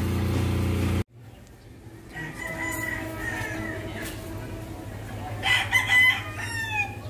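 Rooster crowing twice: a long crow about two seconds in, then a louder crow near the end that trails off in a falling note.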